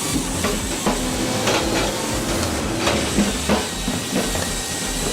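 Wood-processing machinery running with a steady hiss and low rumble, and irregular knocks and clunks throughout.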